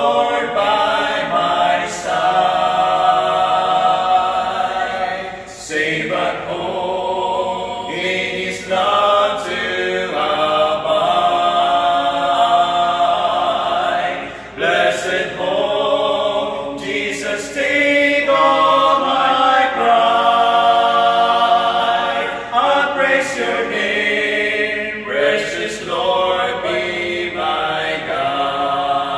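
Male vocal quartet singing a cappella in four-part harmony, in sustained phrases with brief breaths between them.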